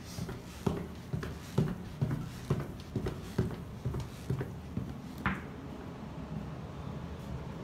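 Footsteps going down stairs, hard steps about one a second, stopping about five seconds in, followed by a short squeak.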